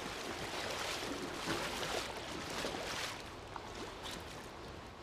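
Pool water splashing and sloshing as a limp body is dragged through the shallows, in surges for about three seconds, then quieter.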